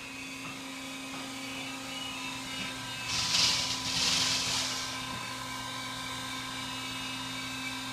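Vehicle lift's electric pump motor running steadily while it raises an SUV, a constant even hum. About three seconds in, a hiss swells for a second and a half, then fades.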